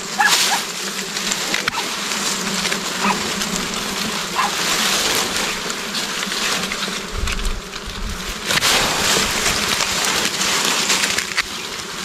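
A swarm of honeybees buzzing steadily around a wild comb as it is cut away, with crackling and rustling of grass and twigs under gloved hands.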